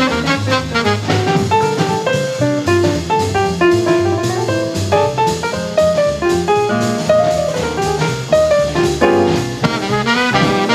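Fast bebop jazz from a 1953 quintet recording: a horn plays a quick line of short notes over piano, double bass and drum kit. The band is alto saxophone, trumpet, piano, bass and drums.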